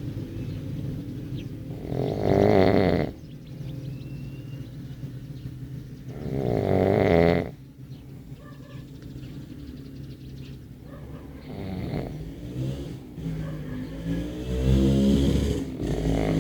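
A person snoring: two loud snores about four seconds apart with quieter breathing between, then a wavering pitched sound that grows louder near the end.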